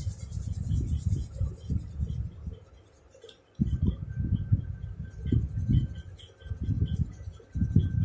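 Wax crayon rubbed back and forth on paper in quick repeated strokes, colouring in a drawing, with a pause of about a second near the middle.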